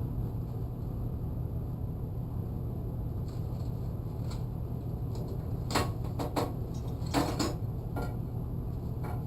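Small plastic accessory bag being opened and its parts handled: a few crinkles and light clicks, bunched about six and seven seconds in, over a steady low hum.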